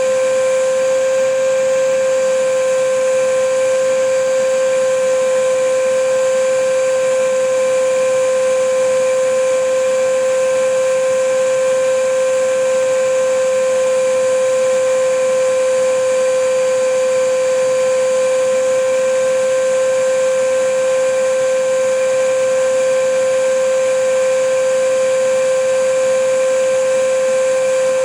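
Vacuum cleaner running steadily: a constant motor tone over an even rush of air, unchanging throughout.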